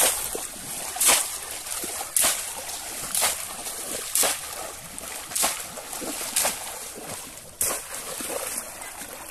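Shallow pond water splashing about once a second as a bamboo basket fish trap (polo) is plunged down into it again and again while wading, the way polo fishing searches the pond bottom for fish.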